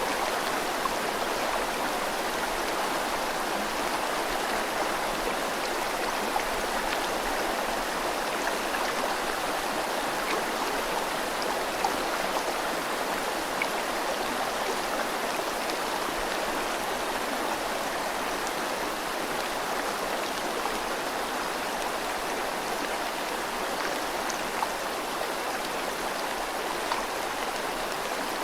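River water flowing steadily with rain falling, an even rushing hiss with a few brief drop ticks here and there.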